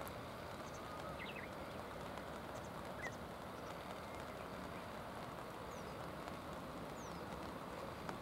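Steady rushing noise of the river and falling rain, with a few faint, high bird chirps over it.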